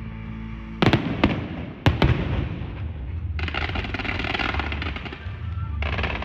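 Fireworks going off: a few sharp bangs in the first two seconds, then a dense, sustained crackling from about three and a half seconds in, briefly breaking off near the end.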